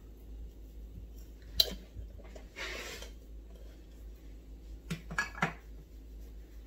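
Kitchen handling sounds: a sharp clink about one and a half seconds in, a short rustle, then a few light knocks and clicks about five seconds in, over a low steady hum.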